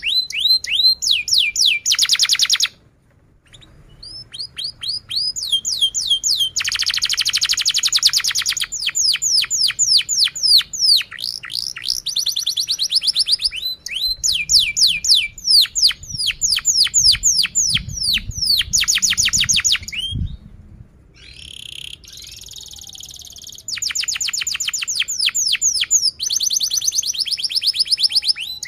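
Domestic canary singing a long song of fast trills: rows of rapid, repeated notes, many sweeping downward, with short pauses about three seconds in and about twenty seconds in.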